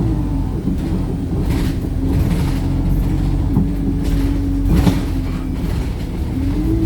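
Wright StreetLite single-decker bus under way, heard from inside: the engine and driveline whine holds a steady pitch, dipping slightly at the start and rising again near the end, over road rumble and cabin rattles. A sharp knock comes about five seconds in.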